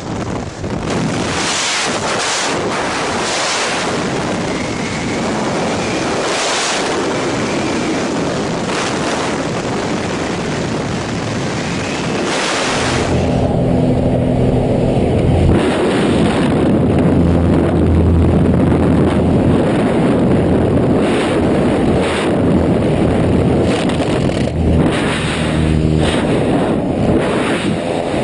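Wind rushing over the microphone at the open door of a light aircraft in flight, with the plane's propeller engine droning underneath; the engine's steady low tone comes through more plainly from about halfway on, with a few sharp knocks near the end.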